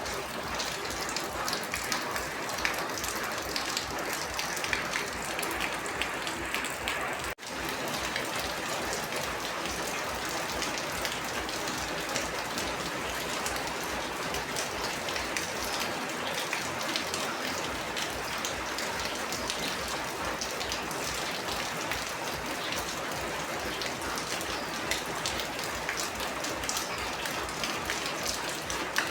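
Steady rain falling, a dense patter of drops striking a surface, cutting out for an instant about seven seconds in.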